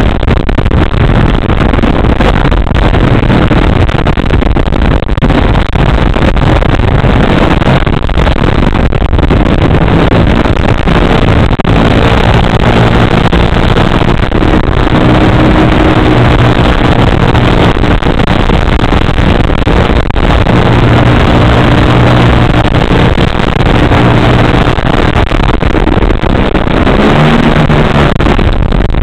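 3W gasoline engine of a radio-controlled aerobatic model plane running in flight, under heavy wind rush on the onboard camera's microphone. About a third of the way in, the engine note comes through more clearly and rises and falls with the throttle.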